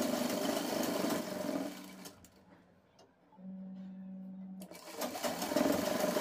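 Sewing machine stitching lace onto fabric in two runs. It stops about two seconds in, and a steady low hum comes in before it starts stitching again for the last second and a half.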